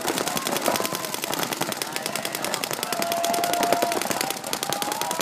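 Paintball markers firing rapidly and continuously, the sharp pops of several guns running together without a break.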